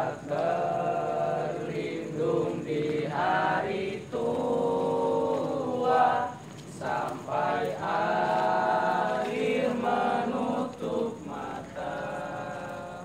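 A group of young voices singing a song together in unison, in phrases of long held notes with short breaths between them.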